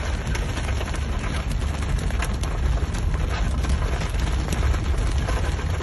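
Flash-flood water rushing steadily, a deep constant noise with many small crackling ticks running through it.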